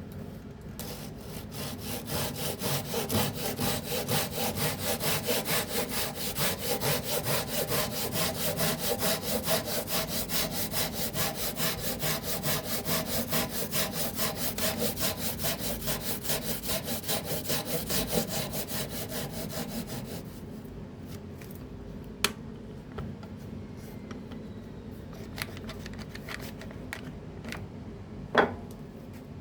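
Suizan Japanese pull saw cutting through wood in quick, even strokes. After about twenty seconds the sawing stops, and a few light knocks and taps follow, with one sharper knock near the end.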